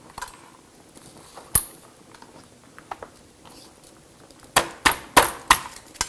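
Kitchen handling sounds: a single sharp click, then near the end a quick run of about five sharp knocks and clinks of utensils and cookware on a counter.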